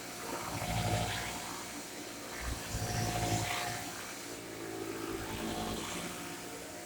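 Shark corded vacuum cleaner running, a steady motor hum that swells and fades several times.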